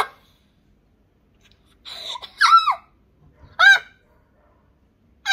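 A young girl's short, high-pitched cries of "ah" in pain, about two seconds in and again a second later, after hot water touched her skin.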